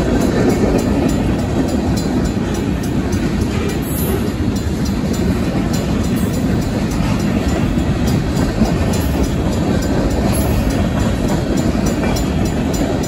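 Freight train cars, mostly tank cars, rolling past at a street crossing: a steady, loud rumble of steel wheels on the rails.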